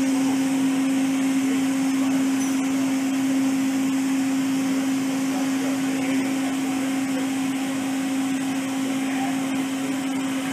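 Makino A77 CNC horizontal machining center running: a steady mechanical hum with one strong constant tone over an even whir.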